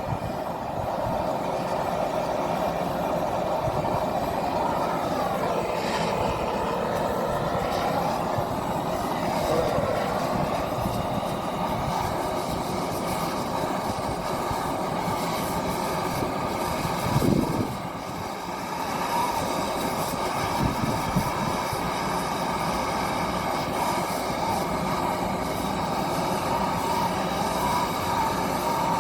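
Steady mechanical running noise with a held hum whose pitch wavers briefly, and a single louder thud about seventeen seconds in.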